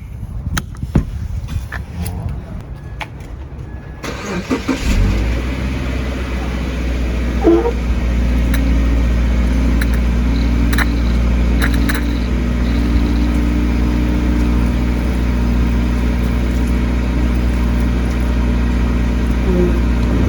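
A few light knocks, then a car engine starts about four to five seconds in and settles into a steady idle.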